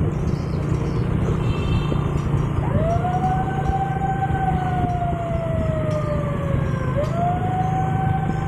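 Motorcycle engines running steadily on the move, with a siren starting about three seconds in: it rises quickly, falls slowly over about four seconds, then rises again near the end.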